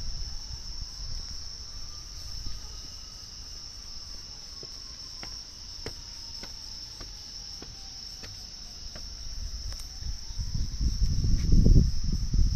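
Steady night chorus of crickets, with a faint distant tornado warning siren slowly rising and falling in pitch beneath it. Scattered sharp clicks come through in the middle, and a low rumble swells loud near the end.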